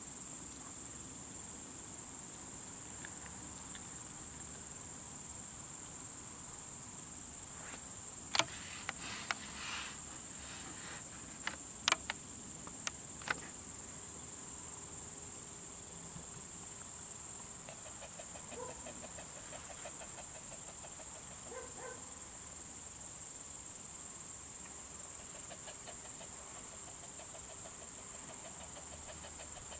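A continuous high-pitched chorus of night insects, crickets, chirring without a break. A few sharp clicks come about a third of the way through, and a fainter rapid pulsing of lower pitch comes in the second half.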